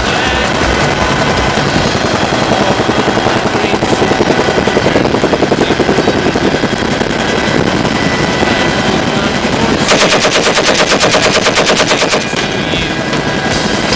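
Door-mounted machine gun firing rapid bursts from a helicopter, over the steady noise of the helicopter's rotor and engine. The loudest, sharpest stretch of firing runs from about ten to twelve seconds in.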